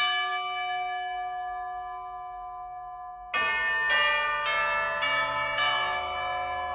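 Bell chimes of a logo sting: one struck chime rings and slowly fades for about three seconds, then four more strikes about half a second apart build into a ringing chord with a brief high shimmer.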